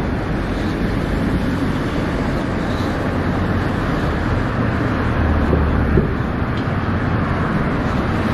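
Steady city road traffic, engine and tyre noise from buses and cars, with a deeper low rumble swelling about five seconds in.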